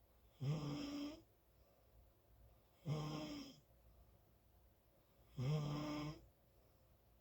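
Loud snoring: three snores, each just under a second long, coming about every two and a half seconds, with quiet between them.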